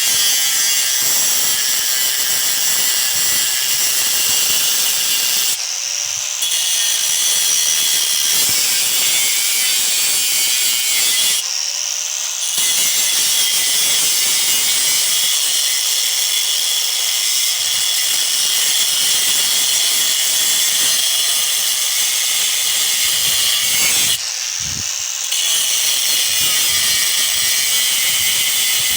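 Power tool with an abrasive cut-off wheel grinding through the metal of a large electric motor, a loud, steady, high-pitched shriek. It eases off three times: the wheel lifts briefly from the cut and its pitch rises as it spins freely, then it bites again.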